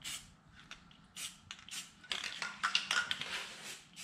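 Aerosol spray can hissing in several short bursts, then a longer spray from about halfway in until near the end, coating freshly welded steel to keep it from rusting.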